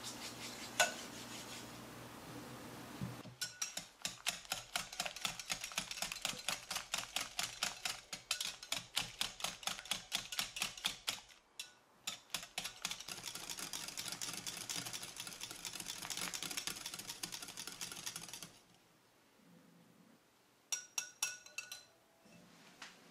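Wire balloon whisk beating eggs and sugar in a glass bowl: rapid, regular clicking strokes of the wires against the glass, in two long spells with a short pause between them, then a few quick strokes near the end. Near the start there is a single glass clink as the sugar is tipped in from a small glass dish.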